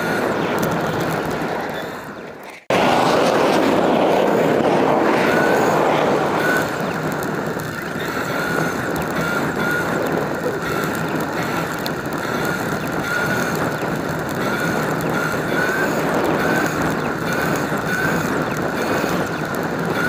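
Wind and rolling noise on the microphone of a camera moving along paved paths, with a faint wavering high tone. The rush fades about two seconds in, cuts out for a moment, then comes back abruptly.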